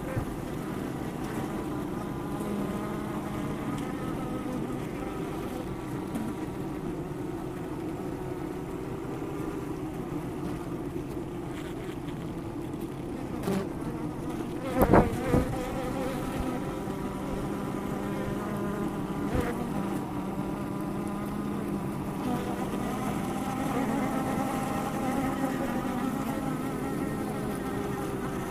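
Honey bees buzzing in a steady hum around their hive. A few sharp knocks land about halfway through.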